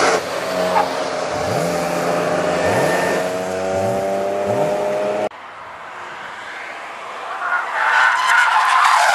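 Car engines running and revving with several short rises. After a break about five seconds in, a car comes in with its tyres squealing as it loses grip on the oil-slicked track, loudest near the end.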